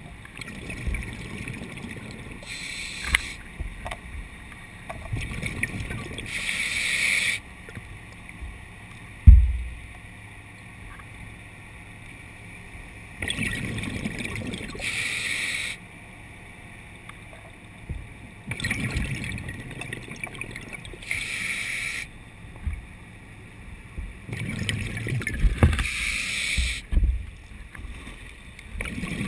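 Underwater breathing of a diver on breathing gear: hissing, bubbling breaths every few seconds over a low rumble. A single heavy low thump about nine seconds in is the loudest sound.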